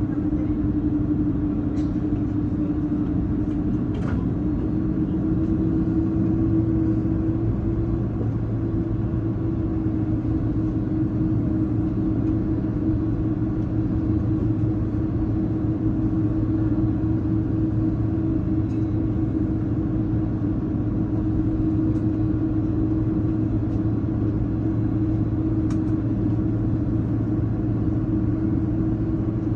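Steady jet-engine drone and airflow rumble heard inside the cabin of an Airbus A330-203 with GE CF6-80E1 turbofans. It carries a constant hum tone that rises slightly about five seconds in.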